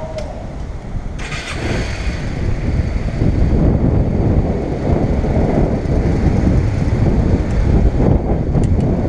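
Cruiser motorcycle's engine running at idle, a low uneven rumble that gets louder about three seconds in, with a brief hiss about a second in.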